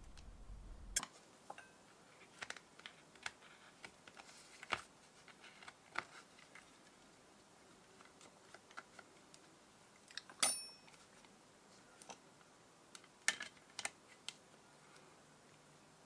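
Scattered small clicks and taps of plastic and metal as a Kindle's inner assembly is pried and eased out of its case with a pry tool. The loudest, a little past the middle, is a sharp metallic click with a brief ring.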